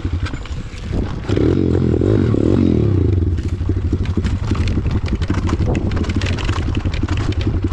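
Small single-cylinder four-stroke pit bike engine running under the rider on a rough downhill dirt trail. The throttle opens about a second in, with a rise and fall in engine pitch. Scraping and rattling from the bike over the ruts can be heard alongside it.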